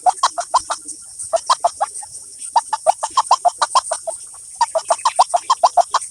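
A bird's rapid clucking call: short notes at about eight a second, given in four bursts separated by brief pauses. Under it runs a steady high-pitched hiss.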